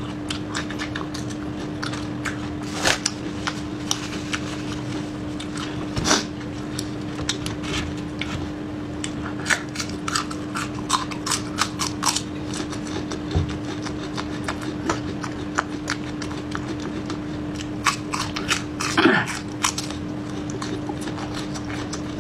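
Close-miked biting and chewing of crunchy raw food, with repeated sharp crunches scattered through, over a steady low hum.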